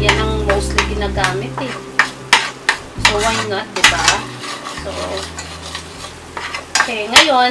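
A metal spoon stirs and scrapes a thick red paste across the bottom of a stainless steel pan, with the oil sizzling underneath. A few sharp metal knocks come near the end.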